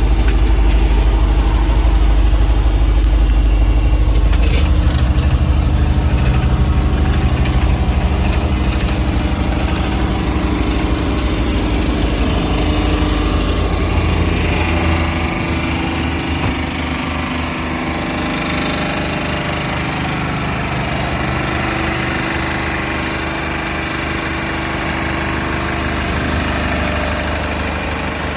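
Caterpillar 914G wheel loader's diesel engine running steadily. A heavier low rumble fills the first half, then eases to a lighter idle about halfway through.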